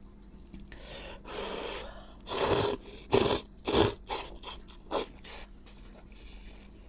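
A man slurping hot noodles from a bowl of soup: three loud slurps in quick succession a little over two seconds in, then a few softer ones.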